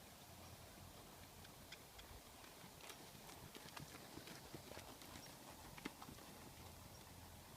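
Faint hoofbeats of a ridden horse: a scattering of soft, uneven clicks and thuds.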